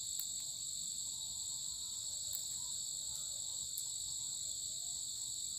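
Steady insect chorus at dusk: a continuous high-pitched shrilling in two steady pitch bands, with no let-up.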